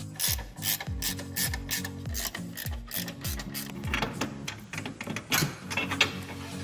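Ratcheting spanner clicking in quick, uneven runs as it undoes a nut on a strut tower brace, over background music with a deep, falling bass beat.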